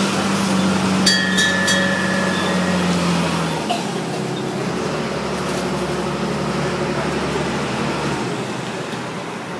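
Engine and road noise of an open-sided, trolley-style tram driving along a street, heard from inside its cabin: a steady hum whose engine note drops in pitch about three and a half seconds in. A few short metallic clinks about a second in.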